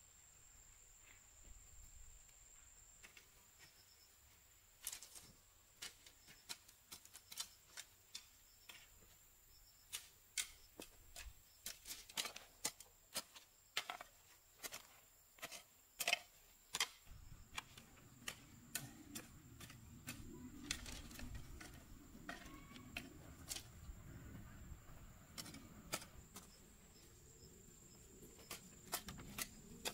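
Quiet hand work with bamboo stakes and tomato plants: irregular light clicks and taps of bamboo, thickest in the middle. Soft rustling comes in past the halfway point, over a faint steady high-pitched tone.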